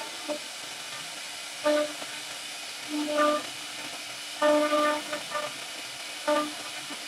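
CNC router spindle cutting a carved relief into a wooden door panel: a steady cutting noise, with a fixed-pitch whine that swells up sharply about five times as the bit bites deeper into the wood.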